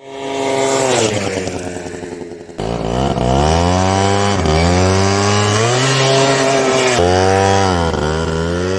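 Yamaha Jog RR scooter's small two-stroke engine revving, its pitch climbing and dropping back again and again, about once every second or so.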